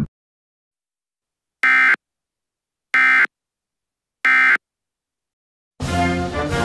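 Three short, identical electronic buzzer beeps about 1.3 seconds apart, with dead silence between them. Near the end, orchestral music with brass begins.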